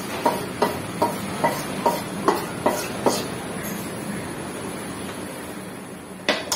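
A spoon scraping ground masala paste off a metal plate, clinking against the metal. There are sharp ringing clinks about two or three times a second for the first three seconds, then softer scraping, and a couple of louder knocks near the end.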